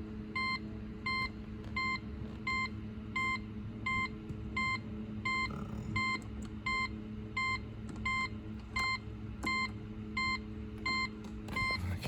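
2004 Pontiac GTO warning chime beeping steadily, about two short beeps a second, with the key out of the ignition, over a steady low hum. The owner puts this fault down to a damaged spring in the ignition lock cylinder.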